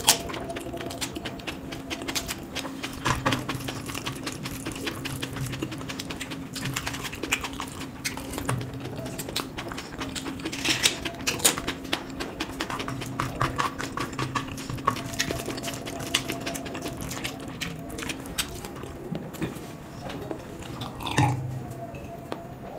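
Close-miked eating sounds: wet mouth clicks, smacking and chewing of a mouthful of noodles eaten by hand, in a dense run of short sticky crackles. A faint steady hum sits underneath for most of it.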